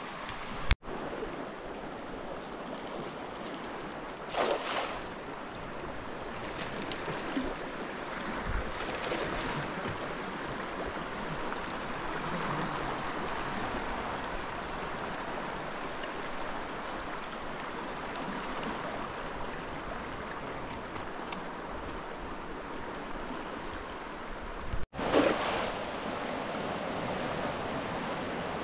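Fast-flowing river water rushing steadily past rocks, with brief louder swells about four and nine seconds in and two instant dropouts, one near the start and one near the end.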